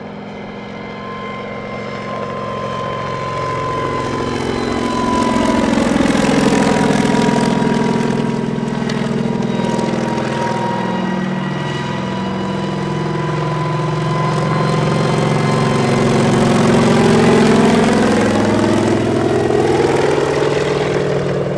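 Kamov Ka-26 helicopter flying low overhead, its twin radial piston engines and coaxial rotors running. It is loudest as it passes close, about six and seventeen seconds in. The engine pitch slides down and then back up as it circles.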